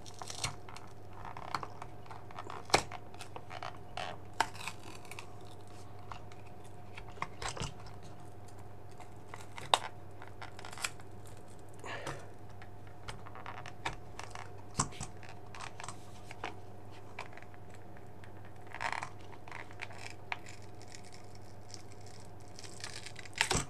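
Irregular small clicks, cracks and scrapes of plastic as a thin blade pries and pulls the glued front bezel off a 3.5-inch TFT car reversing monitor, the glue letting go bit by bit. A faint steady hum runs underneath.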